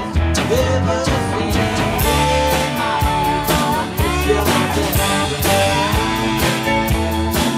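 Live country-rock band playing an instrumental break: strummed acoustic guitar and drums keeping a steady beat, under a lead guitar line of sliding, bending notes.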